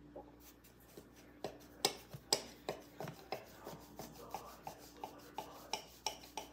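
Chef's knife chopping through a slab of powdered strawberry marshmallow, the blade knocking down on the stone countertop in an uneven run of sharp taps, about two or three a second.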